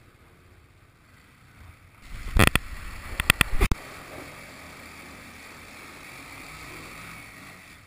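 Handling noise from a camera being moved: a quick run of loud knocks and rubs a couple of seconds in. After it comes a steady rushing hiss.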